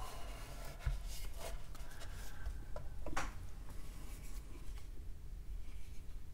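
Quiet handling of an Ozeri digital kitchen scale on a tabletop: a soft knock about a second in, then a sharp click of its power button about three seconds in as it switches on.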